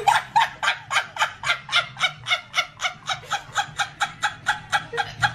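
A warbling, stuttering wail-like cry made of short pitched pulses, about six a second, going on without a break.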